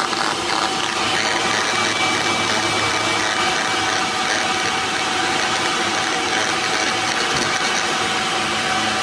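Steady noise with a hum and thin whistling tones from a radio receiver monitoring an FM broadcast transmitter, with a higher whistle coming in about a second in. It is the noise of the transmitter's RF self-oscillation, which the repairer puts down to equipment that is not well shielded.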